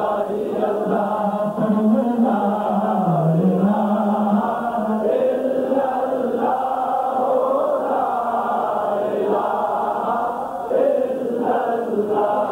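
Male voice reciting a naat, singing long drawn-out notes that slide down and climb back up.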